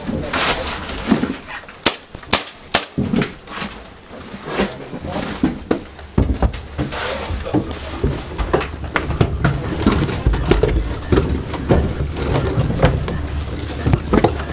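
An airsoft player moving through a dark wooden building, making scattered footsteps, knocks and gear rustle. Three sharp cracks come about two to three seconds in, and a low rumble starts about six seconds in.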